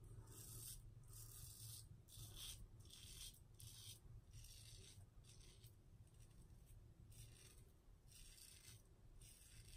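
Merkur 34C double-edge safety razor with a Treet Black Carbon blade cutting whiskers through lather on the cheek. About a dozen short, faint scratchy strokes, roughly one a second.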